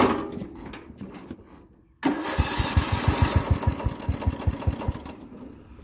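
The riding mower's hood thuds shut. About two seconds later the electric starter cranks the 17 hp OHV engine in rapid, even beats for nearly three seconds, then stops.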